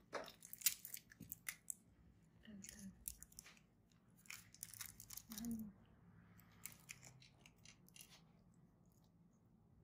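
Faint scattered clicks and soft rustles, some in quick clusters, from gloved fingers pressing gauze against skin.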